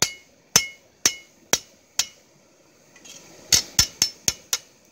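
Hand hammer forging a long steel blade on an anvil: five blows about two a second, a pause, then five quicker blows about four a second, each with a short metallic ring.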